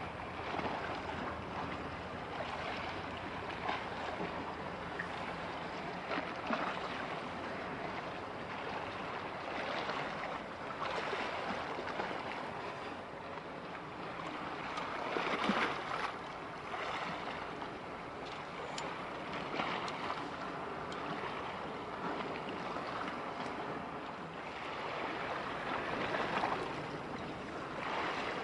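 A steady rush of wind and waves outdoors by the water, swelling and easing every few seconds. No ship's engine tone stands out.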